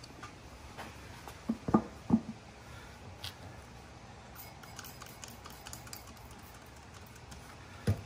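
A rubber OneWheel tire on its hub motor being handled while it is worked onto the rim: a few sharp knocks close together about two seconds in, then scattered light clicks over a low background hiss.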